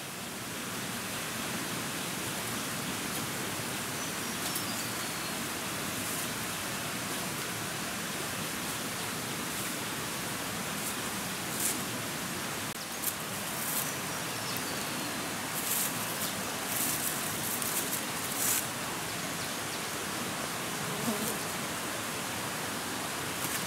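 Steady hissing forest ambience. In the middle stretch it is broken by short crackles of dry leaves and twigs underfoot. Two faint descending bird whistles sound, one early and one about midway.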